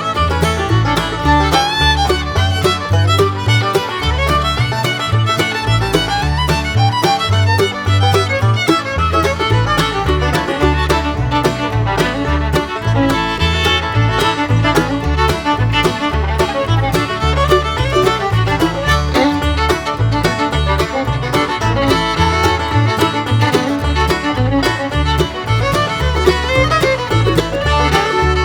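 Background music: an upbeat bluegrass-style instrumental with fiddle, banjo and guitar over a steady beat.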